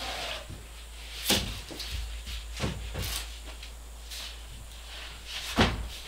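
Large paintings being handled and leaned against one another: a few wooden knocks and bumps with scraping between them, the loudest bump near the end.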